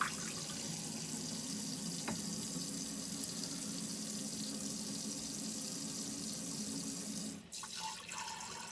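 Faucet running water steadily into a sink, with the flow fed by the Alde hot-water system, which is now starting to cool. The rush dips briefly and turns a little quieter about seven and a half seconds in.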